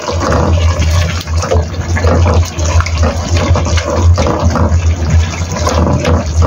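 Pork rib stew with Chinese yam and black fungus simmering in a wok, its thick sauce bubbling as a silicone spatula stirs and turns the pieces against the pan, over a steady low hum.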